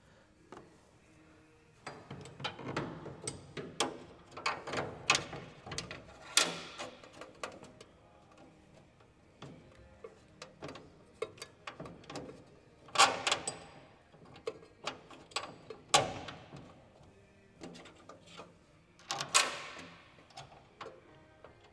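Metal clicks and clanks of a truck toolbox's mounting clamps, bolts, washers and nuts being handled and fitted. Four louder metallic clanks ring briefly, about a quarter, two thirds and three quarters of the way in, and near the end.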